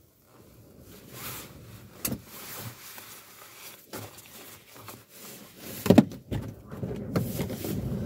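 Low rumble of a slowly moving car heard from inside the cabin, with wind buffeting it. A couple of sharp knocks stand out, the loudest about six seconds in.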